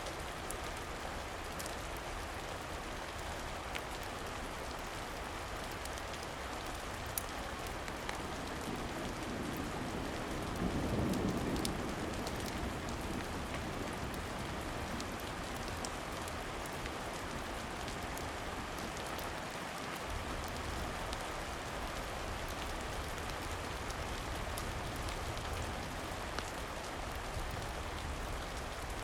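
Steady rain falling, with scattered faint clicks through it. A low rumble swells up briefly around ten seconds in.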